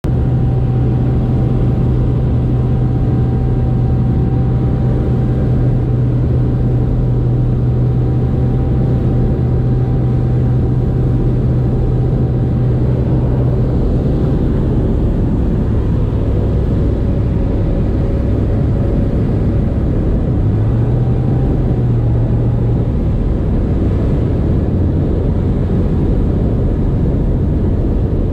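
Light sport airplane's propeller engine running, heard from the cockpit. The engine note holds steady, drops about halfway through as power comes back for the landing approach, rises again briefly for a couple of seconds, then settles lower.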